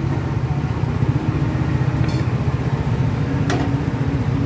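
An engine idling steadily: a low, even rumble, with a couple of faint clicks.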